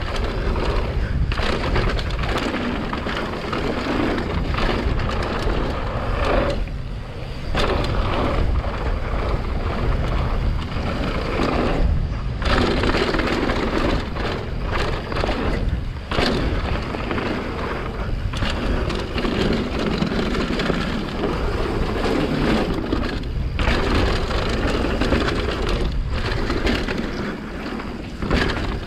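Mountain bike descending a rough downhill trail at speed: rushing wind on the microphone and tyres on dirt, with the bike rattling and knocking constantly over roots and bumps. The noise drops for a moment a few times.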